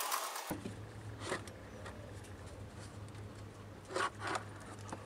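A few short clicks and scrapes of hand tools and metal parts as the valve cover is worked off a car engine: one about a second in, two close together near four seconds. A steady low hum runs under them.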